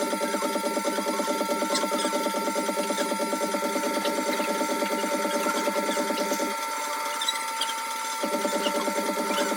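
Güde Tormek-style wet grinder running, with a steel blade being ground against its stone in a rough, fast-pulsing grinding noise. The grinding drops away for about a second and a half near the end, then picks up again.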